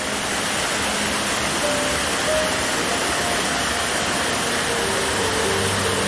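Waterfall and rock cascade rushing steadily, a constant hiss of falling water, with soft background music of slow held notes underneath.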